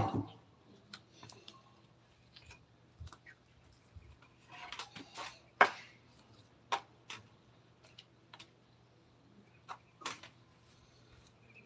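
Hand tools being handled at a woodworking bench: a sharp knock, then scattered irregular clicks and knocks of tools against wood. About halfway through there is a short spell of scraping.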